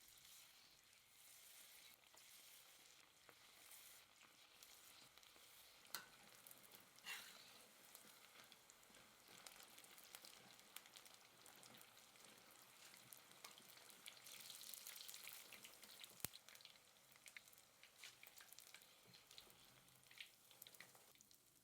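Food frying in hot oil: a faint, steady sizzle with fine crackling, broken by a few sharp clicks.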